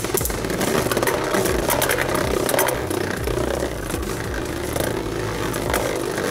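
Two Beyblade Burst spinning tops, Right Artemis and Archer Hercules, whirring on the plastic stadium floor, with frequent sharp clicks and clacks as they strike each other and the stadium wall.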